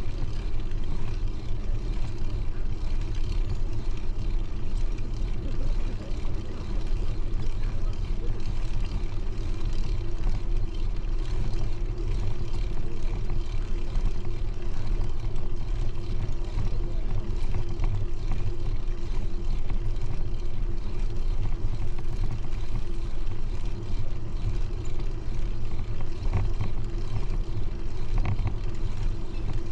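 Steady low rumble of wind and road noise on the microphone while riding a bicycle along a smooth paved path.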